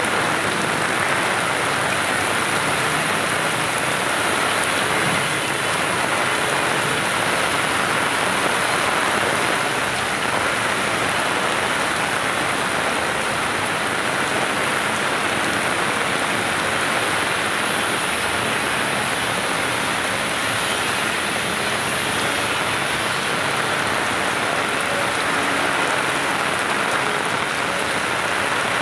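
Heavy rain falling, a steady, dense hiss that never breaks.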